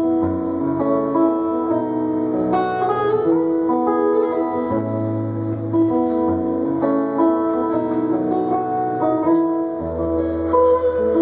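Acoustic guitar playing an instrumental piece: a picked melody over held bass notes.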